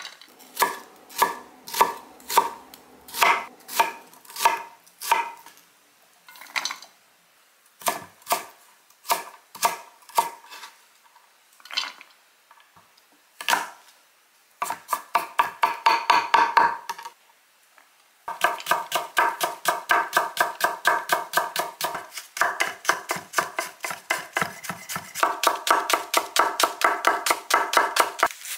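Kitchen knife chopping vegetables on an end-grain wooden cutting board. The chops come singly and unevenly at first, then as a short dense flurry about halfway, then as a long run of fast, even chopping.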